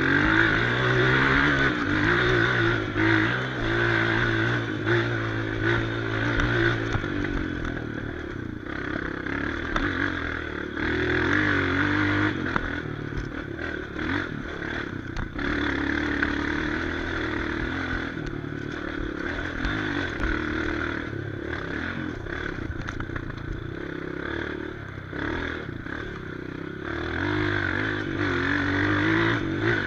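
Off-road motorcycle engine revving up and down repeatedly as it works up a rocky climb, with knocks and clatter from the rocks underneath.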